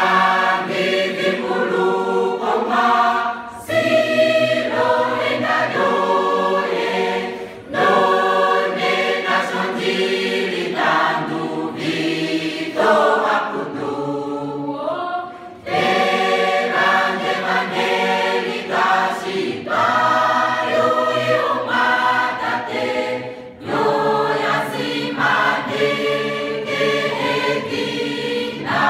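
Mixed choir of men's and women's voices singing a hymn in parts, in phrases broken by brief breaths every few seconds.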